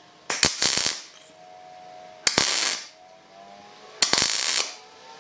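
Wire-feed MIG welder laying three short tack welds, each a crackling burst of arc noise lasting well under a second, about two seconds apart.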